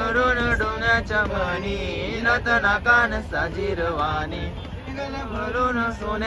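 Male voices singing a Koli folk song in a wavering, sustained melody, over a steady low rumble.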